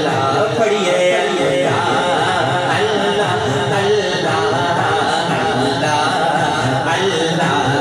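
A man singing a Punjabi naat solo, drawing his voice out in long, wavering held notes.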